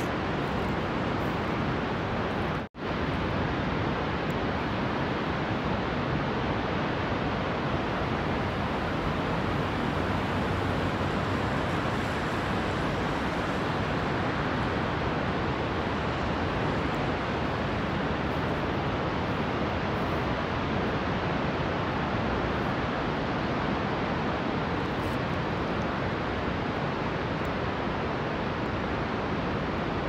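Steady, even rushing of a tall waterfall falling into a gorge, broken by a brief silence about three seconds in.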